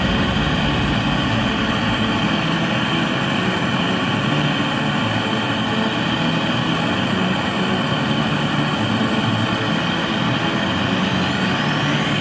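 Gas-canister blowtorch burning with a steady, even hiss of its flame.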